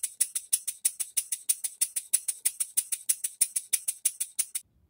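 Single-cylinder bar stock model engine running steadily, with a fast, even clicking of about eight beats a second. The beats cut off abruptly near the end.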